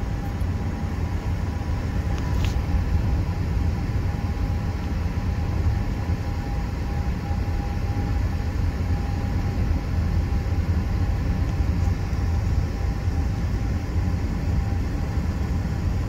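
Steady engine and road noise inside the cabin of a Mazda CX-30 cruising at about 45 mph, a deep even rumble with a faint steady tone above it. A light click about two seconds in.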